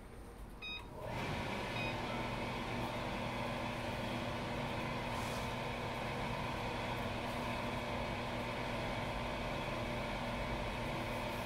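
A short electronic beep, then an electric fan switches on about a second in and runs with a steady hum.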